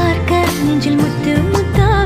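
Background music: a song with a wavering melody line over a bass line and a steady beat.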